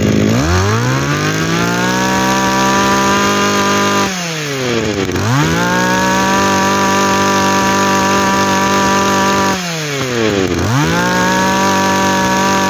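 Iseki 231 brush cutter's small 23 cc two-stroke engine, which the seller says is a Komatsu engine under the Iseki badge, running at full throttle. The revs sag and climb back three times as the throttle is let off and opened again: near the start, about 4 seconds in and about 10 seconds in.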